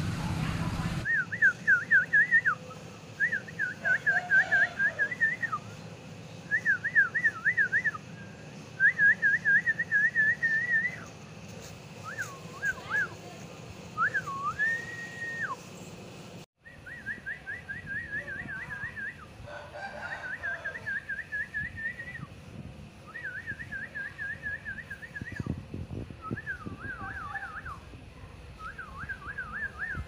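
High, rapidly warbling whistled trills, repeated in short phrases of one to two seconds with brief gaps, dropping out for an instant about halfway through.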